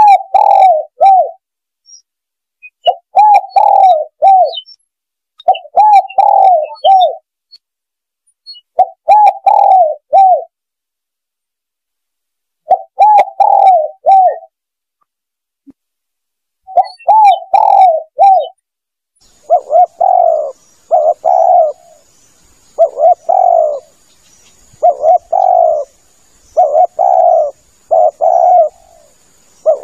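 Spotted dove (tekukur) cooing, played as a hunting lure call. It gives phrases of three or four bubbling coos about every three seconds. From about two-thirds of the way in, a different recording takes over, with shorter, rougher coos about once a second over a faint high hiss.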